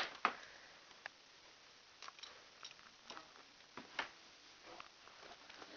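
Faint, irregular clicks and taps, about a dozen scattered through the quiet, the sharpest right at the start and about four seconds in.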